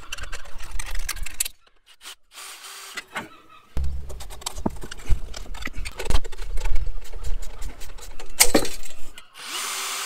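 Hand tools and metal motorcycle parts clicking, clinking and clattering in irregular knocks during the strip-down of a motorcycle, with a short rushing hiss near the end.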